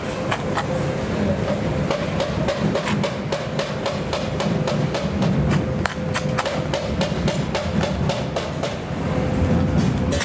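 Irregular sharp knocks and clicks of a butcher's knife working a lamb rack on a wooden cutting board, over a steady low rumble.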